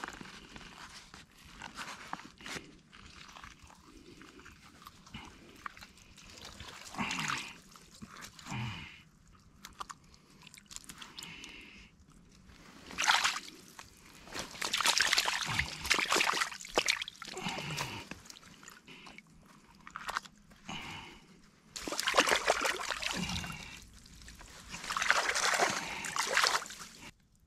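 Stream water sloshing and splashing as a gutted trout is swished and rinsed by hand. It comes in several noisy bursts of a second or two each, most of them in the second half.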